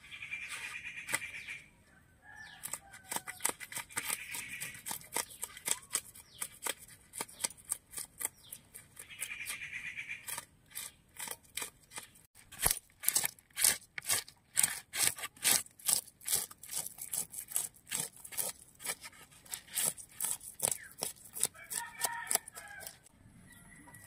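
A knife scraping the scales off a raw rohu fish, in quick repeated rasping strokes with scales flicking off. A chicken clucks now and then.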